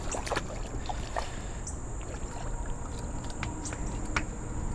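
A hooked channel catfish splashing briefly at the water's surface as it is lifted out, then a few light knocks and clicks as it is swung in on the line.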